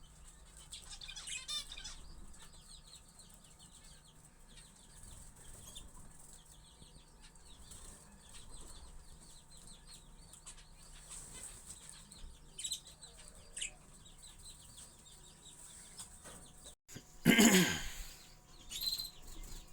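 Budgerigars chattering and chirping continuously, with a louder burst of chatter about a second and a half in. Near the end, after a brief break, comes a loud sudden sound that falls in pitch.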